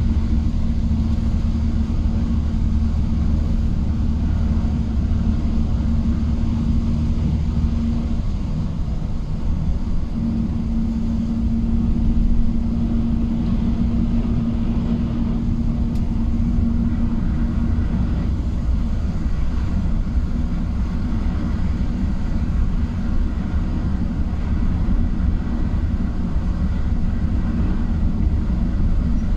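Engine and tyre noise from inside the cab of a vehicle driving on a wet road: a steady low rumble with a humming drone that drops out about eight seconds in, returns two seconds later and fades away after about eighteen seconds.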